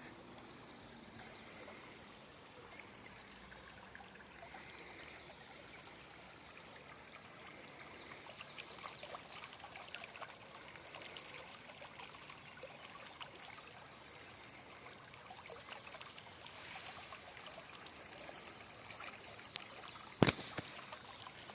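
Small brook trickling over its bed, with many small ticks. Near the end comes one sharp, loud knock.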